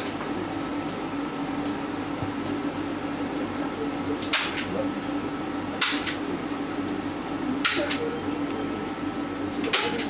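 Four short, sharp scrapes of a painting tool working oil paint, about two seconds apart, over a steady low hum.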